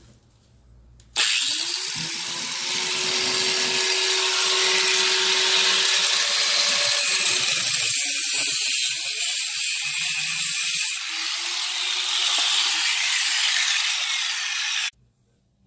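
Power saw fitted with a metal-cutting blade running and cutting through the old copper shower supply pipes behind the wall. It starts abruptly about a second in, runs loudly and steadily, and stops suddenly near the end.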